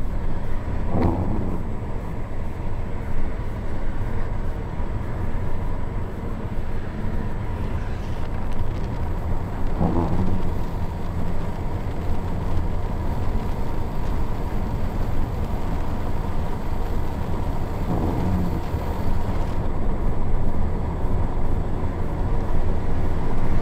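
Steady road and engine noise of a 2016 Ford Escape driving fast, heard from inside the cabin, with three brief falling tones spaced several seconds apart.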